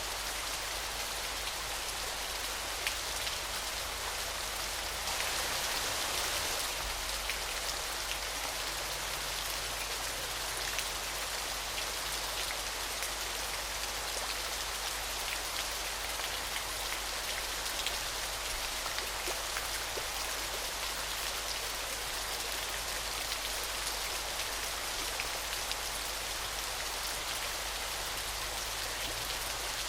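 Falling water splashing steadily: a continuous hiss full of tiny droplet ticks, swelling a little about five seconds in.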